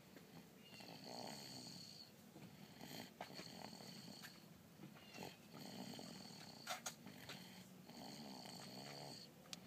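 Faint snoring from a sleeper, one snoring breath about every two to three seconds, with a couple of short sharp clicks in between.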